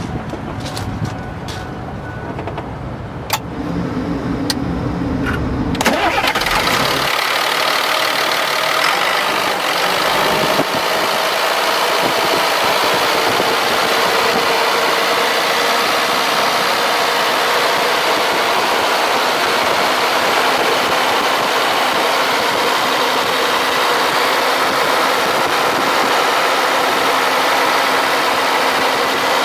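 Caterpillar 3126E inline-six turbo diesel starting about six seconds in, then idling steadily, heard close at the open engine bay.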